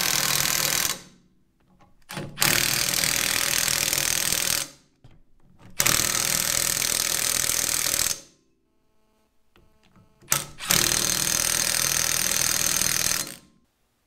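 Impact wrench hammering in four bursts of two to three seconds each, the first already running, each cutting in suddenly and winding down as the trigger is released, with short pauses between.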